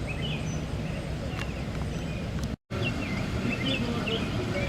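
Birds chirping, with repeated short, quick-gliding notes, over a steady low outdoor rumble. The sound cuts out completely for an instant about halfway through.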